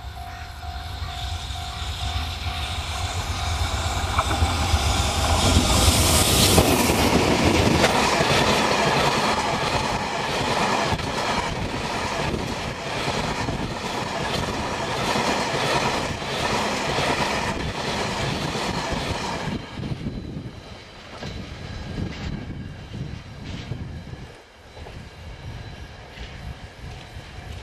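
Freight train hauled by a JNR Class EF64 electric locomotive passing close by. The locomotive goes by loudest about six seconds in. A long train of tank wagons follows, its wheels clattering over the rail joints in a quick, steady rhythm. About twenty seconds in the clatter drops away as the end of the train recedes.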